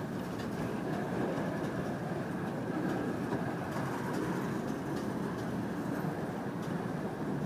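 Freight train's autorack cars rolling slowly past on the rails: a steady, even rumble of wheels and cars.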